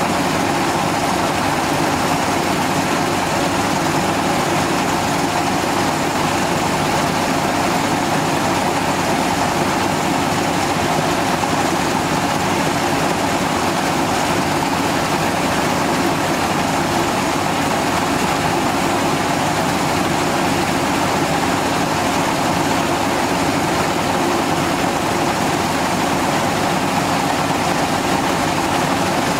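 Gold ore processing machinery running with a steady, unchanging mechanical drone.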